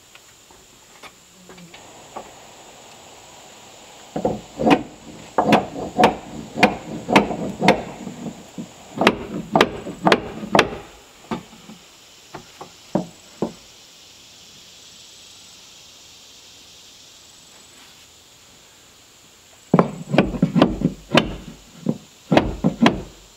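Hammer driving nails into a wooden board on board siding: a run of sharp strikes about two a second, a few lighter taps in the middle, then another quick run of blows near the end.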